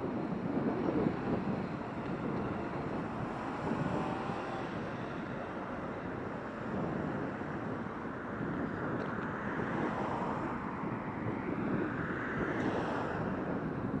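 Road traffic on a city street: a steady rumble and hiss of cars going by, with wind on the microphone. A vehicle passes closer and louder near the end.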